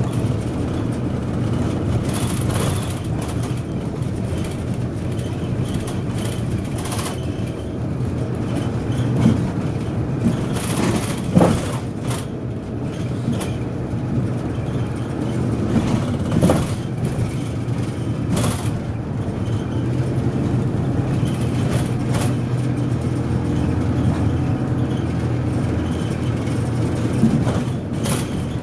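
Inside a moving route bus: steady engine and road noise, with a few short knocks and rattles from the cabin along the way.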